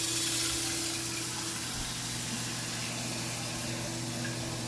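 Kitchen sink faucet running full into a small saucepan, a steady hiss of water filling the pan.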